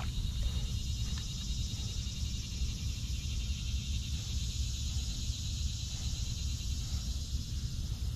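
Steady high insect chorus, crickets or similar, over a low, uneven rumble of wind on the microphone.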